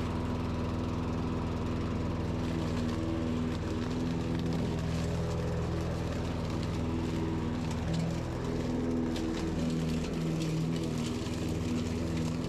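Walk-behind petrol rotary lawn mower running steadily while cutting grass, its engine pitch shifting briefly about eight seconds in.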